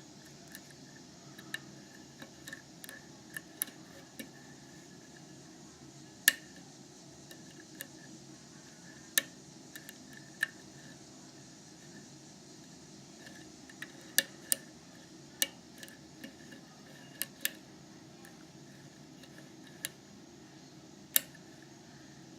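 Small sharp metallic clicks and taps at irregular intervals, a few louder than the rest, from a Peterson Gem pick working the five pin stacks of a FAB 100L Euro cylinder lock held under tension by a pry-bar tension wrench, as the pins are lifted and set one by one.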